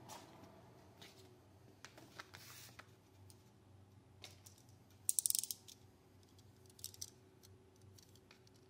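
Plastic vinyl sheet rustling as it is handled. About five seconds in comes a quick run of ratcheting clicks from a snap-off utility knife's blade being slid out, with a couple of further clicks shortly after, over a faint steady hum.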